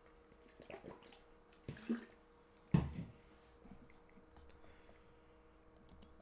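Handling noises close to the microphone: a few soft knocks and rustles, the loudest a dull thump about three seconds in, then a few faint clicks, over a faint steady electrical hum.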